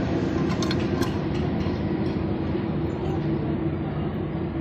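Steady mechanical running noise with a low hum, with a few light metallic clicks about a second in.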